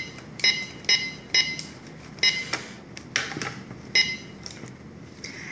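Toy cash register's handheld barcode scanner beeping: a run of short electronic beeps about half a second apart, each press of its button giving one beep. Some plastic clattering comes around three seconds in, then one more beep.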